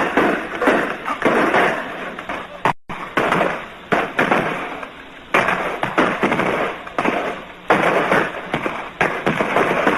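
Irregular gunfire: a dozen or so sharp shots, each fading in a short echo, on an old film soundtrack with muffled treble.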